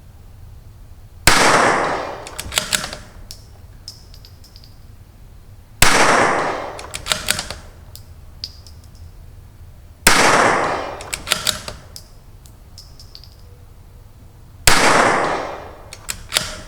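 Four shots from a CZ 457 bolt-action .22LR rifle with an ATS barrel tuner, firing Wolf Match Extra, spaced about four to five seconds apart. Each sharp crack rings off for about a second and is followed by a quick run of metallic clicks as the bolt is worked.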